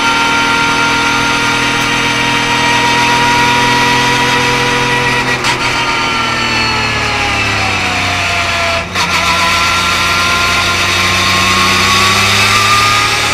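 Porsche 991.2 GT3 Cup car's 4.0-litre flat-six, heard from inside the cockpit, running steadily at moderate revs in third gear. The revs sag about seven seconds in, with a brief lift-off just before nine seconds, then climb again.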